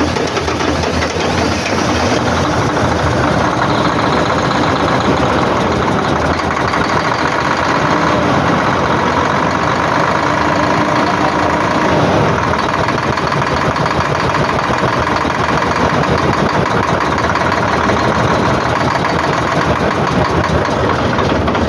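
Volvo 460 dump truck's diesel engine running loudly and steadily, the sound the owner presents as a failing turbocharger.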